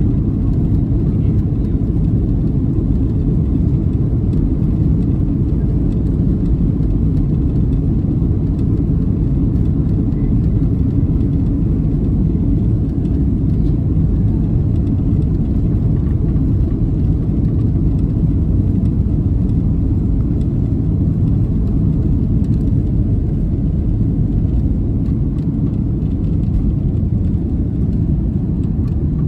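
A Boeing 737-800's two CFM56-7B26 turbofans at takeoff thrust during the takeoff roll, heard inside the cabin over the wing: a loud, steady low roar with runway rumble.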